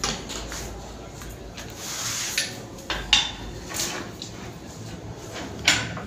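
Scattered sharp clicks and knocks from work at a bench, with a short hiss about two seconds in. The loudest knocks come about three seconds in and again near the end.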